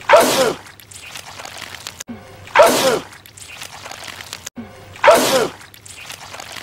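A man sneezing, the same loud sneeze repeated three times about two and a half seconds apart as a loop. Each is a sudden noisy burst with a falling cry in the voice.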